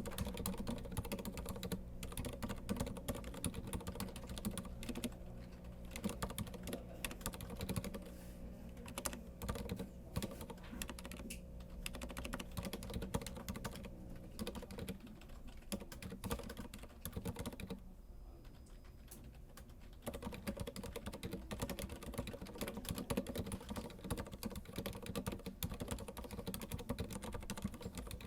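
Continuous typing on an Archiss Maestro 2S mechanical keyboard with Cherry MX Silent Red switches, damped linear switches: a dense, irregular run of keystrokes that eases off briefly about two-thirds of the way through, then picks up again.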